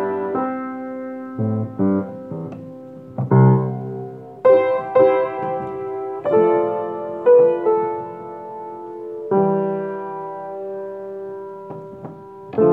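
Piano played slowly: chords and single notes struck one after another and left to ring out, some held for a couple of seconds.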